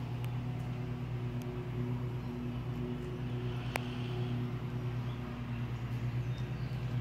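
A machine running with a steady low hum, and one sharp click about four seconds in.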